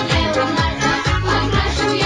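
Music with a steady beat, a low thump about twice a second.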